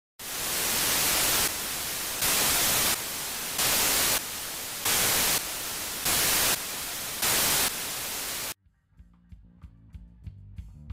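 Television static hiss, swelling louder and softer about every second and a quarter, then cutting off abruptly about eight and a half seconds in. Quiet music with plucked notes follows.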